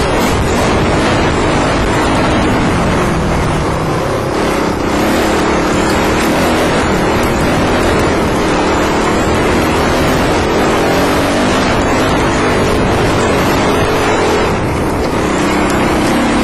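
Dirt bike engine running under way on a trail, heard close up at a helmet-mounted microphone, its note rising and falling as the throttle is worked.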